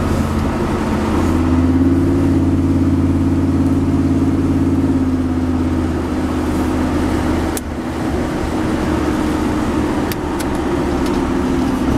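Small-block Vortec 350 V8 of a 1978 Chevy pickup running under steady throttle while cruising, heard from inside the cab with road noise. About seven and a half seconds in the engine note briefly dips, then carries on a little quieter.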